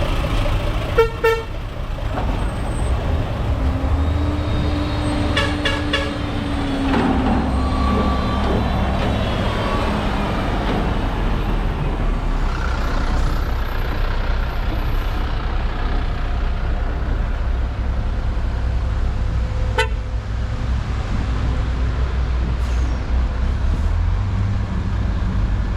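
Heavy vehicle engines and road traffic rumbling steadily, with short horn toots about a second in and again around six seconds.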